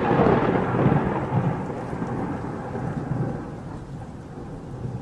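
Rain with a low rumble, the whole sound fading steadily over the few seconds.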